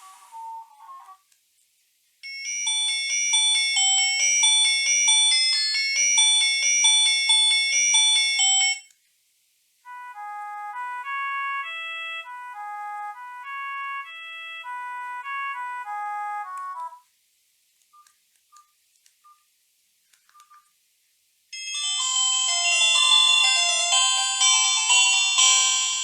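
Strike R30 phone playing its preset ringtones one after another: short electronic melodies of a few seconds each, separated by brief pauses, with a few faint short beeps in one of the pauses.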